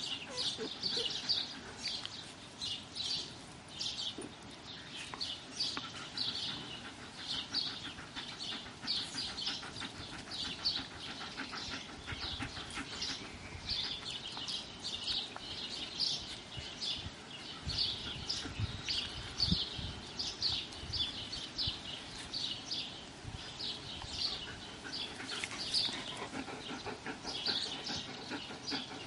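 Small birds chirping over and over, short high chirps coming one or two a second.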